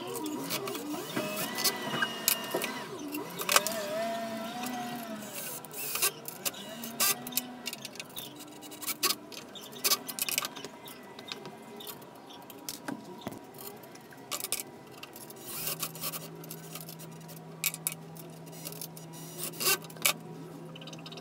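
Cordless drill/driver running in short trigger bursts, its pitch rising and falling, as it drives the screws that fix a Nema 23 stepper motor to its aluminium mounting plate. Many sharp clicks and knocks of tools and metal parts are mixed in, and a steady low hum runs through the last five seconds or so.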